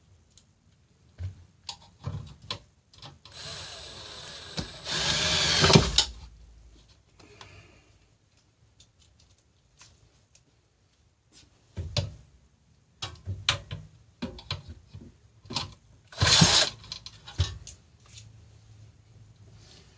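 Power drill-driver with a Phillips bit driving screws into a chair's seat base. One run of about three seconds gets louder near its end as the screw seats, and a short second run comes later, amid clicks and knocks of parts being handled.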